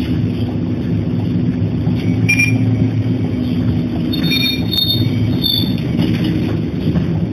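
Diesel city bus heard from inside near the front, its engine running low and the body rumbling as it pulls in slowly along the kerb to a stop. A few brief high squeals sound in the middle.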